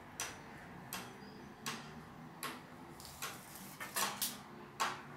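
Faint, sharp knocks at a steady pace, about one every three-quarters of a second: hammering from construction work next door.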